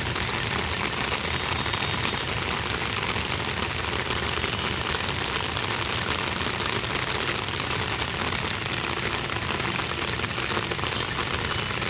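Heavy rain falling steadily, heard from under an umbrella held just overhead.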